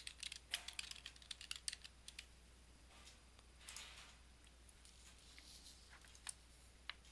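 Faint computer keyboard typing, a quick run of key clicks for about the first two seconds, then a few scattered clicks.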